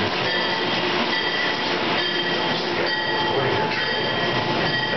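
Amtrak AEM-7 electric locomotive and its stainless-steel Amfleet coaches rolling past as the train pulls into the station: a steady rush of wheels on rail with several thin, high-pitched tones held over it.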